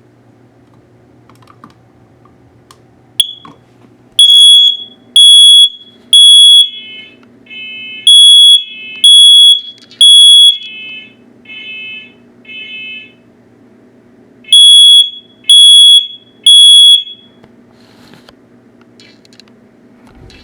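First Alert smoke alarm sounding on test: a short chirp, then loud, high-pitched beeps in groups of three with a pause between groups, the temporal-three evacuation pattern, repeated three times. A second, quieter alarm beeps at a lower pitch in between, out of step with the first, over a steady low hum.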